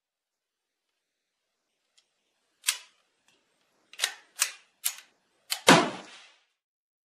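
Sharp metallic clacks from the Chiappa PAK-9 9mm AK pistol being handled on the rest: one about two and a half seconds in, then four quicker ones. Near the end comes a single loud 9mm gunshot from the blowback pistol, with a short echoing tail.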